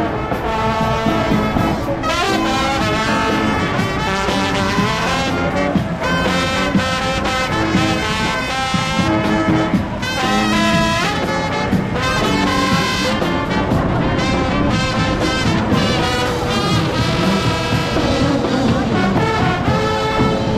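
A brass band playing music, with trombones and trumpets carrying the tune.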